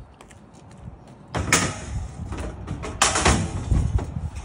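Folding aluminum loading ramp clanking and scraping as it is handled and its end is set onto a pickup truck's tailgate: two loud metallic rattles, one about a second and a half in and a longer one about three seconds in.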